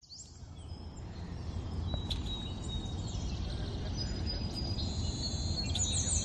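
Outdoor ambience fading in from silence: birds chirping and a steady high insect trill over a low background rumble. The chirps grow busier toward the end.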